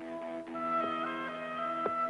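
Background music: several long held notes sounding together, with a higher note coming in about half a second in and a few light taps.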